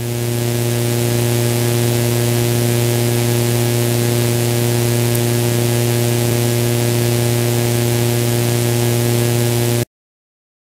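Steady low electrical hum with an even hiss over it, coming through the live nest camera's audio feed. It starts abruptly and cuts off suddenly about a second before the end.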